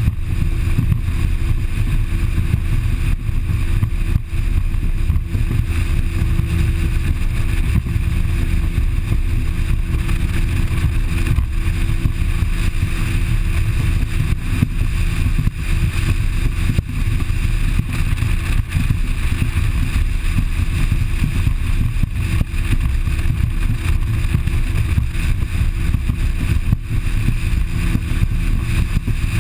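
Bass boat under way at speed: a steady loud rumble of wind buffeting the microphone, with the drone of the motor underneath.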